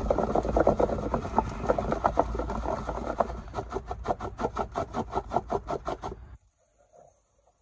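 Fishing boilies being shaken with a dusting of stick mix powder in a container: a rattling, rubbing shuffle that settles into a fast, even rhythm of about seven shakes a second, then stops near the end.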